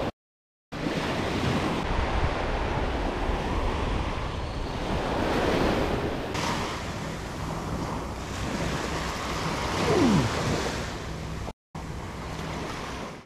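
Ocean surf breaking and washing on a beach, with wind, as a steady rushing noise. The sound drops out completely twice, briefly, at cuts between shots. A short falling tone sounds about ten seconds in.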